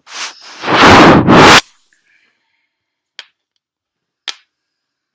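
A loud scraping rub right against the microphone for about a second, then two light clicks about a second apart.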